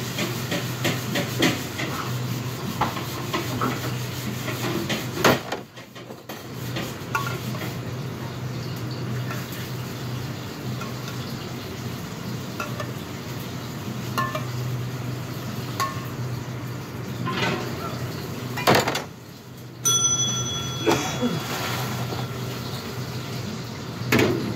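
Commercial kitchen clatter: pots, pans and utensils clinking and knocking over a steady hum from the extraction hood, with a short metallic ring near the end.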